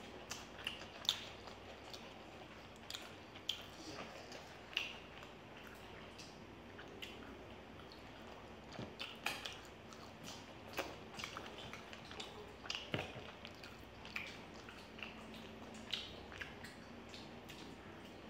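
Close-up eating sounds: two people chewing noodles and fried chicken, with wet mouth clicks and smacks at irregular intervals.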